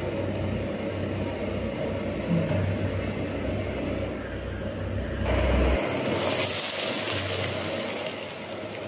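Portable gas canister stove's burner running under a wok of heating oil, a steady low rumble. About five seconds in, sizzling starts as sliced onion and garlic fry in the hot oil.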